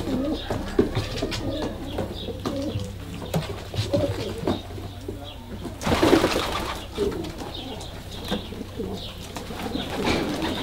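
A loft full of domestic Adana pigeons cooing, many low overlapping coos. A short, louder rush of noise comes about six seconds in.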